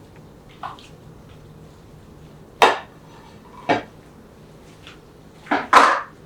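Cutlery or a serving utensil knocking against dishes while food is being plated: a faint tap, two clear knocks about a second apart, then a quick loud double knock near the end.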